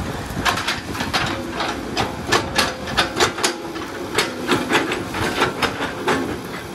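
CAT 312 excavator's diesel engine running under hydraulic load as it digs, with an irregular run of sharp metallic clanks and knocks from the working machine, loudest in the middle.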